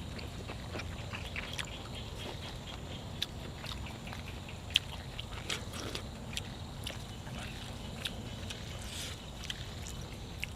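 Close-up chewing and mouth sounds of a person eating, with many short, irregular clicks and crunches.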